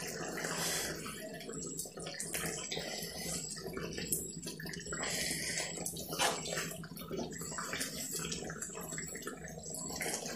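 Thick prawn curry gravy bubbling in a nonstick kadai while a silicone spatula stirs it: wet sloshing with a few light knocks against the pan, the sharpest about six seconds in.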